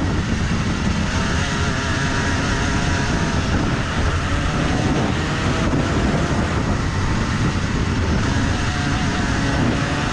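Rotax 125cc single-cylinder two-stroke kart engine running at high revs on track, its pitch climbing slowly as it pulls through the gears-free drive.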